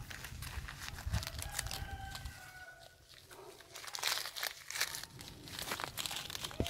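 Leaves and twigs rustling and crackling in quick irregular bursts, with a lull about three seconds in and the busiest crackling near the end.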